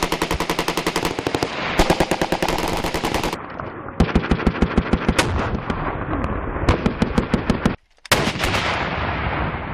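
Automatic machine-gun fire in several sustained bursts of rapid, evenly spaced shots, each burst lasting about one to one and a half seconds with short breaks between them.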